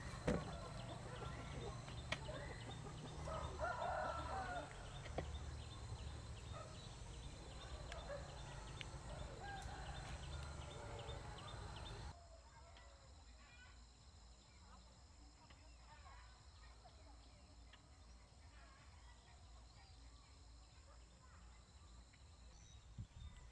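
Domestic poultry calling in short bursts, loudest a few seconds in. About halfway through, the sound drops suddenly to a faint background.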